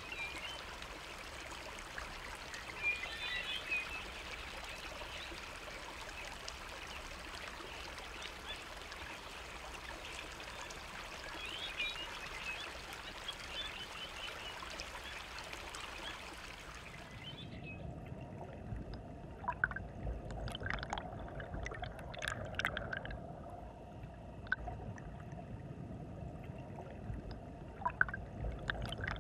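Spring water trickling and splashing over a small weir in a canal, with a few faint chirps. About seventeen seconds in it switches to the muffled underwater sound of the spring: a low rumble with scattered bubbly pops and gurgles.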